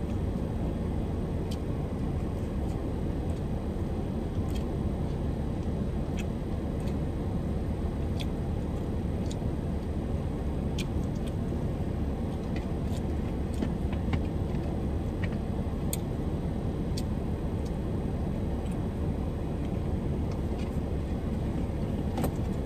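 Steady low rumble of a car, heard inside the cabin, with scattered faint clicks from a plastic fork and eating.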